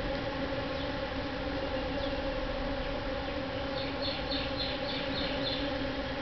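A mass of bees buzzing together while foraging on sarapee blossoms, a steady, even drone. About four seconds in, a short run of about seven quick high chirps sounds over it.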